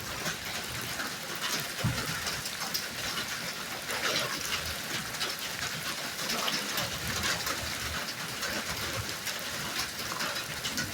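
Steady crackling sizzle of burger patties frying in a grilled cheese machine.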